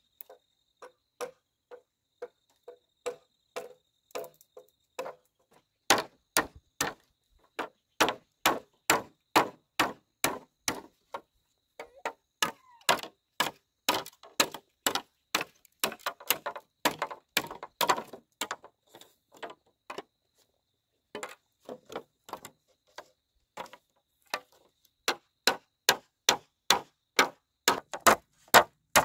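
Repeated sharp blows of a hand tool striking bamboo, about two a second. They are lighter for the first few seconds and louder from about six seconds in, with a short break about two-thirds of the way through.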